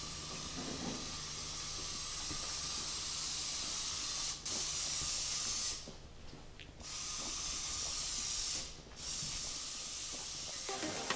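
A steady hiss that breaks off briefly around six seconds in and again near nine seconds. Music comes in near the end.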